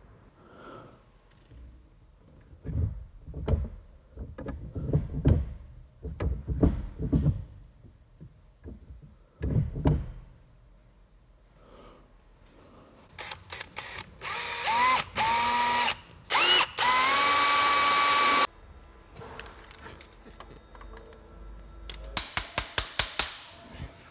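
Metal parts and tools clanking and knocking, then a power drill spinning up several times in short runs with a rising whine, the last run held steady for about two seconds before stopping abruptly. Near the end comes a quick series of about eight sharp metallic clicks.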